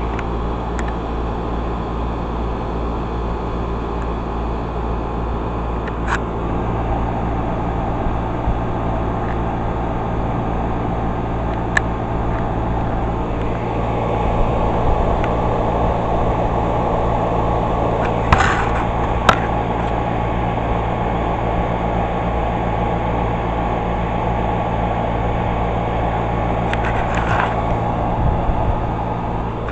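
Carrier 38BRC central air conditioner condenser unit running: a steady hum from the compressor under the even rush of the condenser fan, with a few brief clicks.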